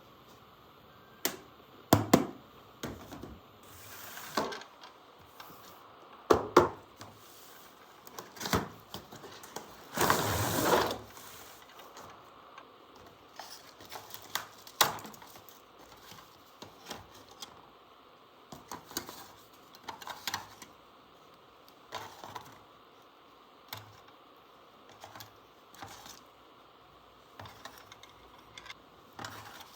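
Small plastic toy parts and packaging being handled: irregular clicks and taps with short rustles, and a longer scraping rustle of about a second around ten seconds in.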